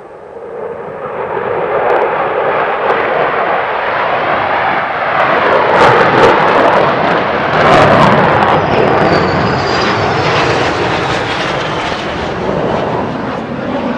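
F-16 fighter jet passing close by: a loud jet roar that swells over the first two seconds, peaks about halfway through and stays loud as it goes away.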